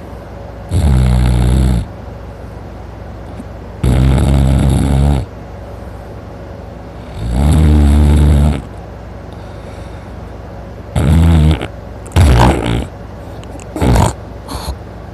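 A man snoring loudly in deep sleep: three long snores about three seconds apart, then three shorter, choppier snores in the last few seconds.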